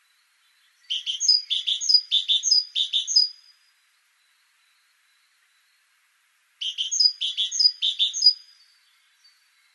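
Great tit singing two phrases, each a quick run of five or six repeated two-note units. The first phrase begins about a second in, the second a few seconds later.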